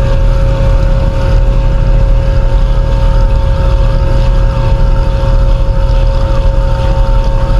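Harbour ferry's engines running: a loud, steady low rumble with a constant two-note hum above it.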